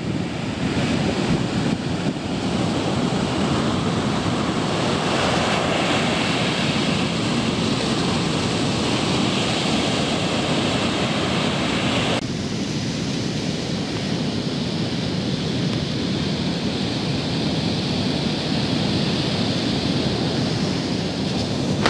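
Ocean surf breaking and washing up a sandy beach, mixed with wind buffeting the microphone. A little past halfway the higher hiss drops away suddenly, leaving a duller rush.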